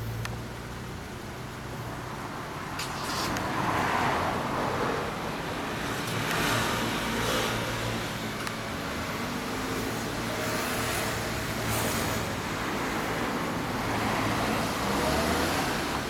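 Street traffic: cars passing on the road one after another, each swelling and fading, over a steady low hum.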